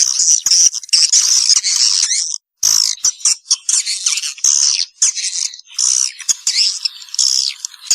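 Recorded edible-nest swiftlet calls played as a lure track: a dense, continuous chatter of rapid high chirps and twitters, with all low sound cut away and a brief dead gap about two and a half seconds in. The track is made for drawing young swiftlets into a new nesting house.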